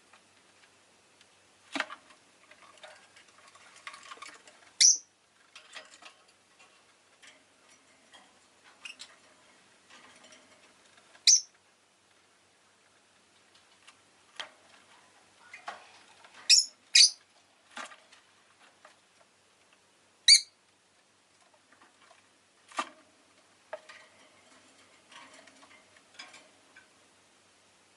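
Rosy-faced lovebird giving short, sharp high-pitched chirps, about five of them, including a quick pair about two-thirds of the way in. Between the chirps come softer chatter and scattered clicks.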